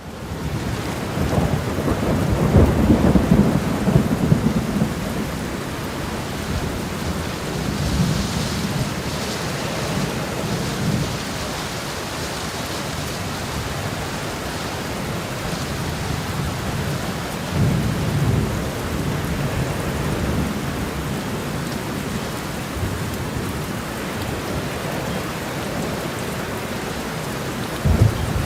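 Steady heavy rain with rolls of thunder rumbling low several times, the strongest near the start.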